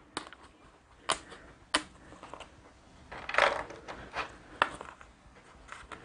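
Thick cardboard game tokens being handled and set down on a table: several sharp clicks, with a brief rustle about three and a half seconds in.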